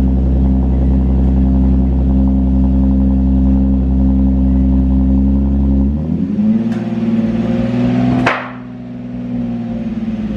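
Nissan 370Z Nismo's 3.7-litre V6 idling steadily. About six seconds in the revs rise and hold. About eight seconds in there is a sharp burst as the throttle closes, and the revs then slowly fall back.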